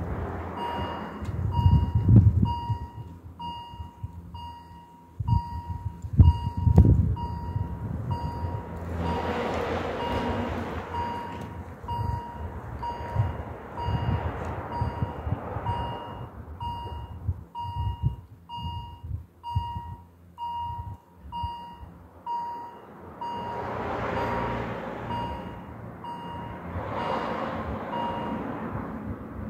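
Swiss level-crossing warning bells ringing a steady, evenly repeated ding, about one and a half strikes a second, while the crossing closes; the ringing stops shortly before the end. Road vehicles pass, loudest about two seconds and six seconds in.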